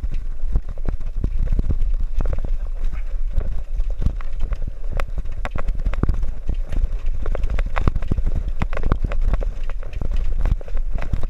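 Bicycle with a wire front basket rattling down a rough, cracked concrete path: a fast, irregular run of knocks and clatters over a steady low rumble.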